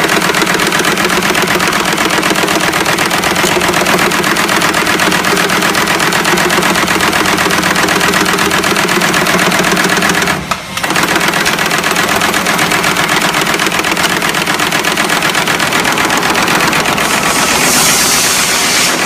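Hairbrush tufting machine running at speed: a fast, steady mechanical clatter as the tufting head punches bristle tufts into the brush base, over a steady hum. It breaks off briefly about ten seconds in, and a hiss rises near the end.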